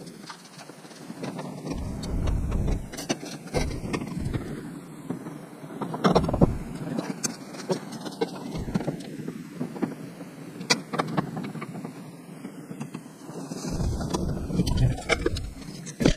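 Scattered metal clicks and knocks of hand work on a truck's windshield wiper arms and linkage, with a few bursts of low rumble.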